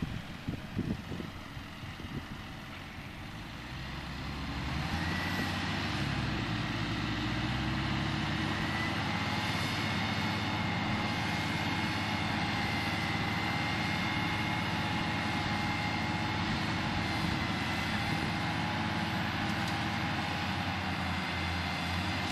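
Tractor diesel engines, a Deutz M610 pulling a mired Fendt 714 with a Horsch Pronto seed drill, revving up about four seconds in and then holding high revs under heavy load. A steady high whine sits over the engine note.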